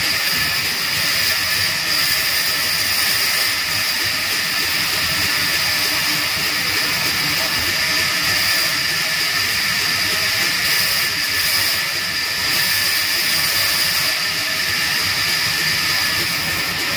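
Large vertical band saw running and cutting through a wooden beam: a steady, high-pitched hiss that keeps on without a break.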